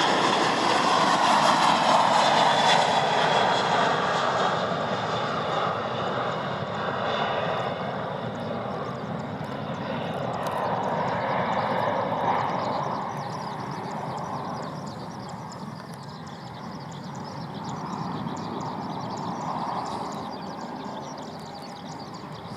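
Jet airliner's engines at takeoff power as it passes and climbs away. The sound is loudest at the start and fades steadily over the rest.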